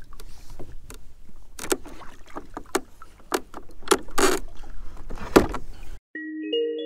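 Irregular knocks and clunks of gear being handled at the bow of a small skiff, around the wooden trolling-motor mount, with clothing rustling against the microphone. Near the end it cuts off abruptly and light mallet-percussion music begins.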